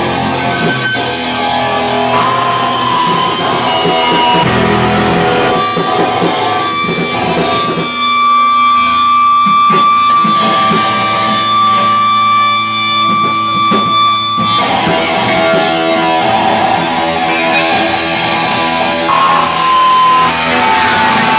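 Live rock band with electric guitar and drums playing loudly. About eight seconds in it thins to a sparser passage with a long held high guitar note, and the full band comes back in about fourteen seconds in.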